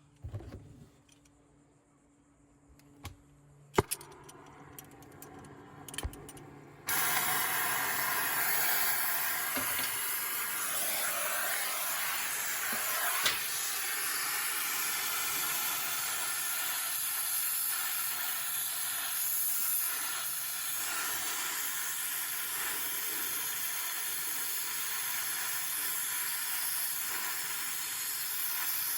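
A few light clicks and knocks, then a steady hiss of gas under pressure starts abruptly about seven seconds in and keeps going.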